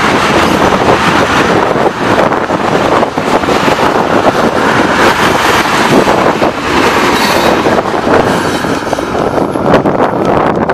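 Tank cars of a freight train rolling past: steel wheels on the rails make a loud, steady noise with many sharp clicks.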